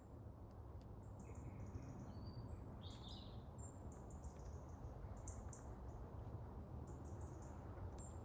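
Faint, scattered chirps and short trills of small songbirds over a low, steady background rumble.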